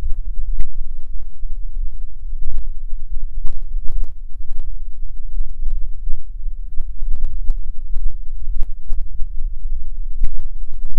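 Wind buffeting an outdoor microphone: a heavy, uneven low rumble with scattered sharp pops.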